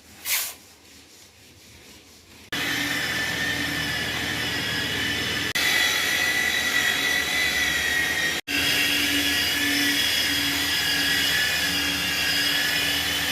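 Power tool running with a steady high-pitched whine, starting abruptly about two and a half seconds in and cutting out briefly near the middle.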